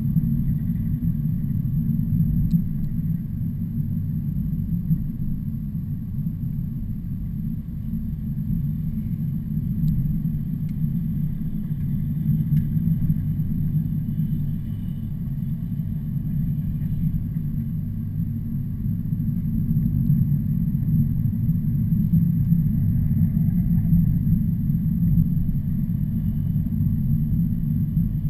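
Heavy truck engine running steadily under load, a continuous low rumble that swells slightly now and then.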